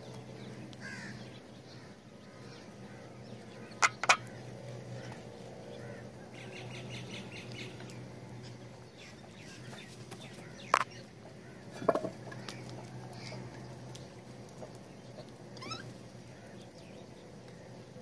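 House crows calling and pecking at clay feeding bowls, with a few sharp knocks of beak on clay: a pair about four seconds in and more near the end. Short bird calls and a quick chattering run come in between.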